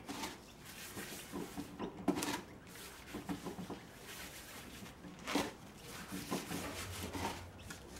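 Soft, scattered rubbing and rustling of gloved hands working salt into a whole lamb carcass lying on a plastic sheet, with a couple of sharper knocks.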